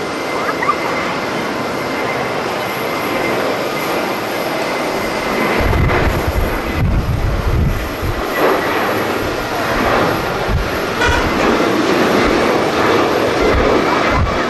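Jet airliner engines heard across the airport as a steady rushing noise with a faint whine. From about halfway through, wind buffets the microphone in uneven low gusts.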